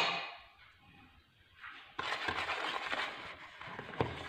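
A sharp click right at the start, then from about two seconds in a steady scratchy swishing: a metal wire whisk beating chickpea flour and water into a thin karantika batter in a plastic bowl. A small knock comes about four seconds in.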